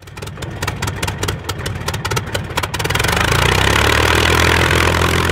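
Piston aircraft engine sputtering into life with a rapid, irregular run of pops, then catching and running steadily from almost three seconds in.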